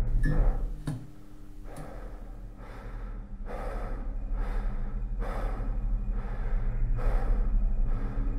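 A person breathing hard and fast, a breath about every three-quarters of a second, growing louder, over a steady low hum. Two sharp clicks come in the first second.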